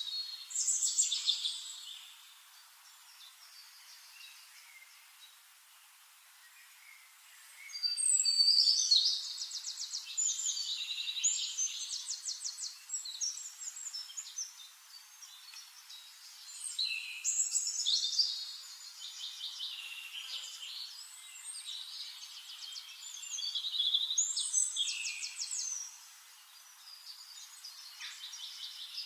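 Songbirds singing in a forest: bursts of rapid, high trills and chirps lasting a few seconds each, four phrases with quieter gaps between them, over a faint steady hiss.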